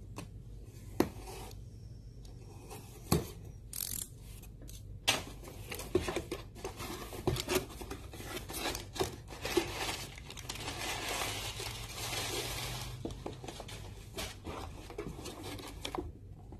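A cardboard shipping box and its packaging being opened by hand: several sharp knocks and taps as it is handled, scattered rustling and scraping, and a longer stretch of steady scraping from about ten to thirteen seconds in.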